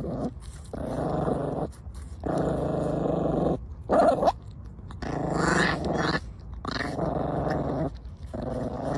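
Puppy growling over an apple it is chewing: about six low growls of roughly a second each with short pauses between, and a short higher-pitched cry about four seconds in.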